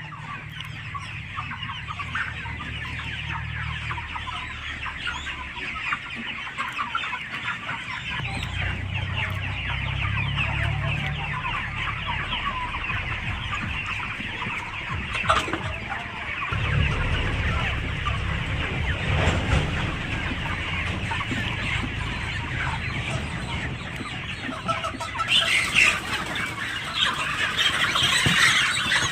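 A flock of chickens clucking, with many calls overlapping continuously. A low rumble comes and goes underneath.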